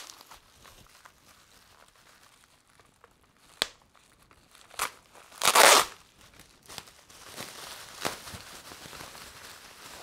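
Plastic bubble wrap crinkling and rustling as it is handled and unwrapped from a toy. There is a sharp click a little past a third of the way in, and the loudest burst of crackling comes just past the middle.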